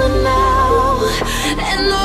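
Background music: a pop track with a steady bass line and a wavering melodic line.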